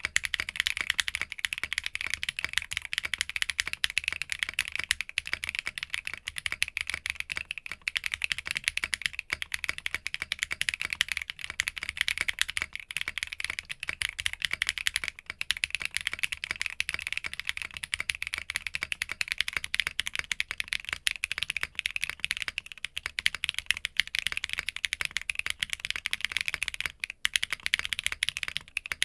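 Rapid, continuous typing on an Arc60 mechanical keyboard fitted with a polycarbonate plate and Sarokeys Strawberry Wine switches. Near the end there is a brief break, then the typing goes on with the board fitted with a POM plate.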